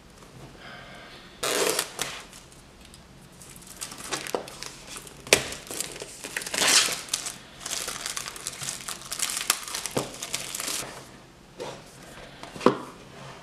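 Clear plastic shrink-wrap being torn and peeled off a cardboard box, crinkling and crackling in irregular bursts, with a few sharp clicks. The crinkling dies away about three-quarters of the way through, followed by quieter handling of the box and a last sharp click near the end.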